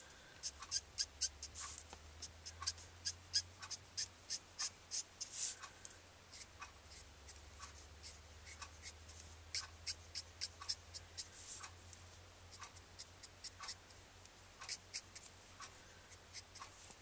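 Copic alcohol marker nib scratching across Copic X-Press It cardstock in quick, short flicking strokes, following the grain of the fur being coloured. The strokes come in soft, rapid runs with short pauses between them.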